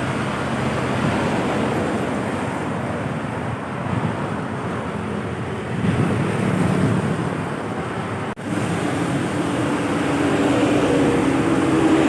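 Road traffic noise from heavy vehicles, a steady rumble of trucks and buses running past. It cuts out for an instant about two-thirds of the way through, then a steadier engine drone comes in.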